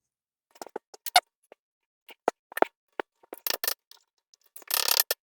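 Irregular light metal clicks and taps, with a short scraping rattle near the end: small hardware being handled while a lock cap is fitted over the spindle nut of a disc brake spindle.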